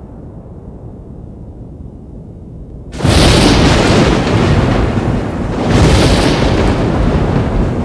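Thunder from a close lightning strike: a sudden, very loud crack about three seconds in, rolling on loud with a second surge about three seconds later. Before it, a low steady rumble.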